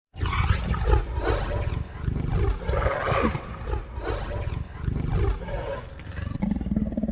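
Zaigorg's roar, a kaiju monster cry sound effect: a long, rough roar that starts suddenly out of silence and swells and falls in waves for about seven seconds, ending on a lower, drawn-out note.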